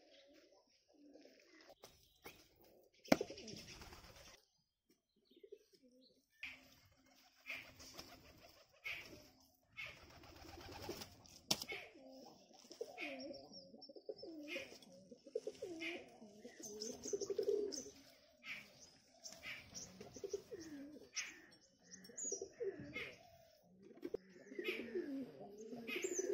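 Doves cooing over and over, with smaller birds chirping at a higher pitch, growing busier after about ten seconds. A single sharp thump about three seconds in is the loudest sound.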